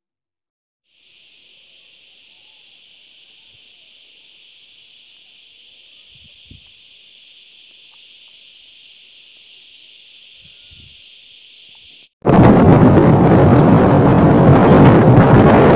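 A faint, steady high hiss, then about twelve seconds in, a sudden loud, continuous wind buffeting on a phone's microphone, deep and rough.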